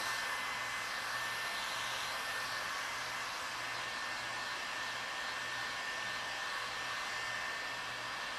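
Electric heat gun running steadily, blowing hot air onto convertible top material to soften it for stretching, with a constant fan whine over the rush of air.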